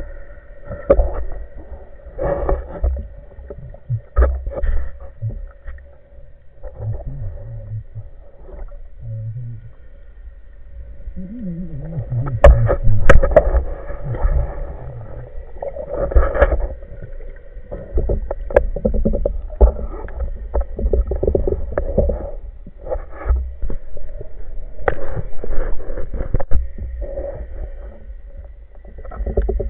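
Underwater audio from a camera mounted on a speargun: irregular muffled knocks, clicks and water movement as the gun and diver move, over a steady faint hum.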